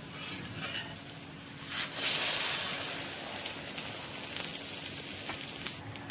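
Egg paratha frying in oil on a flat iron tawa, the oil sizzling and crackling steadily. The sizzle grows louder about two seconds in.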